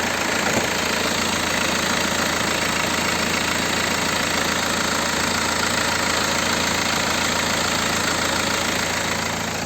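BMW N47 2.0-litre four-cylinder turbodiesel idling steadily with its usual diesel clatter. The owner is checking it for the N47's infamous timing-chain noise and finds the suspect sound not really present at idle.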